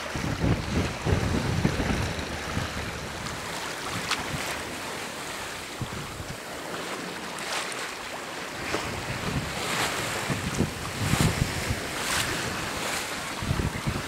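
Water rushing and splashing along the hull of a Colvic Victor 34 sailing yacht under way through choppy water, with several sharper splashes as the bow meets the waves. Wind buffets the microphone in low gusts, strongest at the start and near the end.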